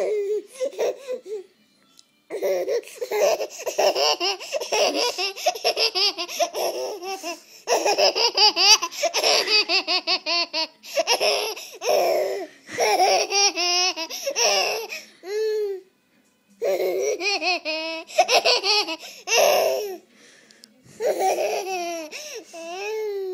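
A baby laughing: high-pitched, pulsing giggles in repeated bouts of a few seconds each, broken by short pauses for breath.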